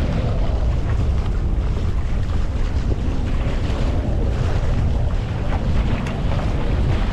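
Wind buffeting the head-mounted microphone, steady and heavy in the lows, with water rushing and splashing along the wooden hull of a proa under sail.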